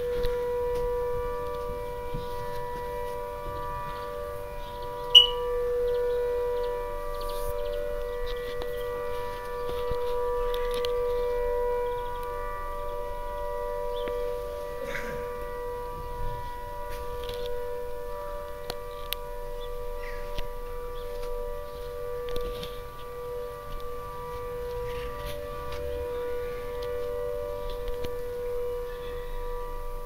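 An explosives factory's air raid siren, being tested, holding a steady two-note tone whose level swells and fades slowly. A brief sharp click comes about five seconds in.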